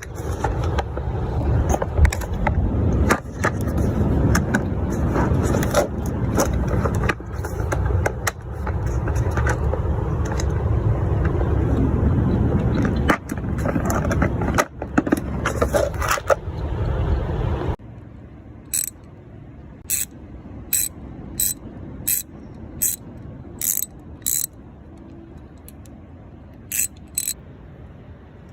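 For about eighteen seconds, loud outdoor handling noise with knocks and clinks of tools. Then the background drops suddenly and a 90-tooth 3/8-inch ratchet gives short, sharp clicking bursts about twice a second, the pawl clicking as it is swung back and forth.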